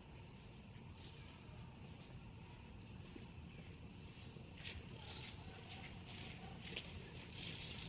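A small bird chirping: short, high notes that drop in pitch, about five of them spread out, with fainter scratchy sounds between them.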